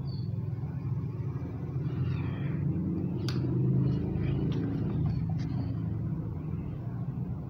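Steady low background rumble, with a few faint, sharp clicks around the middle.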